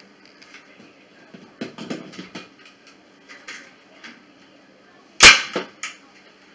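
A staple gun fires once with a sharp snap about five seconds in, driving a staple through chicken wire into the wooden frame, followed by two lighter clicks. Earlier, soft rattling of the chicken wire as it is handled.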